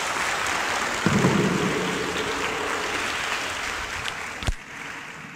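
Audience applauding, dying away near the end, with a single sharp knock about four and a half seconds in.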